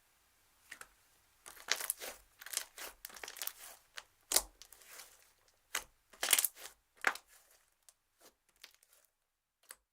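Slime being squeezed and pressed by hand, giving irregular crackles and sticky pops. They come thick through the middle and thin out to a few faint clicks near the end.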